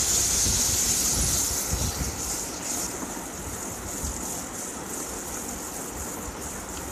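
Chopped tomatoes and onions sizzling in hot oil in a non-stick kadai while a wooden spatula stirs them. The sizzle is loudest for the first two seconds or so, then settles lower.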